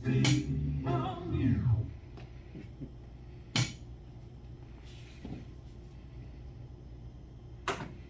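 Music with singing ends about two seconds in on a falling slide. A quiet room follows, broken by two sharp knocks, one mid-way and one near the end.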